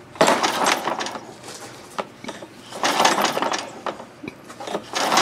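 Recoil starter of a John Deere push mower pulled three times, about two seconds apart, each pull a second-long whirr of the cord and the engine turning over without firing. The spark plug is out of the engine and grounded to the carburetor for a spark test.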